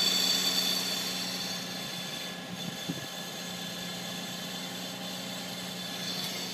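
2006 Infiniti G35's 3.5-litre V6 idling on a cold start, with a high, steady metallic whine over the engine hum that fades during the first second or so: the metal-on-metal grinding noise this car makes from cold. A brief rising blip comes about three seconds in.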